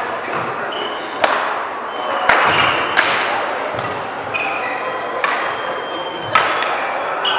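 Badminton rally: five sharp racket strikes on the shuttlecock, spaced about a second apart with a longer gap in the middle, and brief shoe squeaks on the court floor between them, over the steady noise of a large hall.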